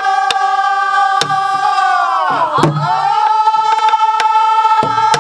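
A group of men and women singing a Korean Namdo folk song in unison, drawing out the 'eolsigu' refrain in one long held note that dips and climbs to a higher held note about halfway through. A few strokes of sori-buk barrel drums beaten with sticks mark the rhythm.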